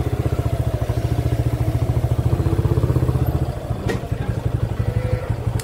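Yamaha motorcycle engine running at low revs with a steady, even exhaust pulse as the bike rolls slowly, easing off to idle a little before four seconds in. A single sharp click comes as it eases off.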